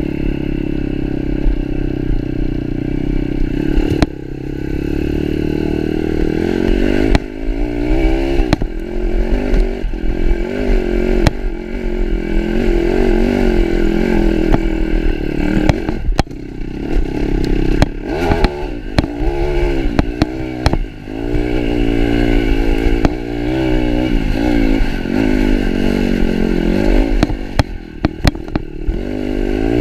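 Pitster Pro 160cc pit bike's single-cylinder four-stroke engine revving as it is ridden hard, its pitch rising and falling over and over as the throttle is worked. Frequent sharp knocks and rattles come from the bike over rough ground.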